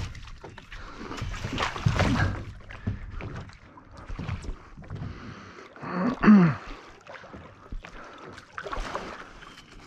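Water splashing and sloshing in irregular strokes as a paddle works the shallow water beside a stand-up paddleboard. About six seconds in comes the loudest sound, a short pitched sound that falls in pitch.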